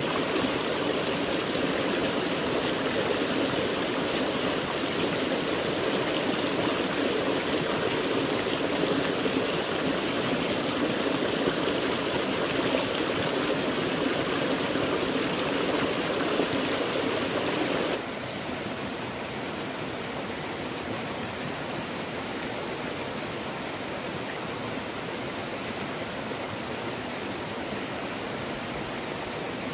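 Stream water rushing steadily. About two-thirds of the way through it drops suddenly to a quieter, more even rush of running water.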